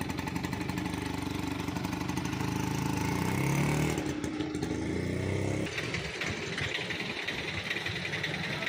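Auto rickshaw's small engine running, then revving up as it pulls away, its pitch rising about three seconds in. About six seconds in the low engine note drops away, leaving a lighter, more distant engine sound.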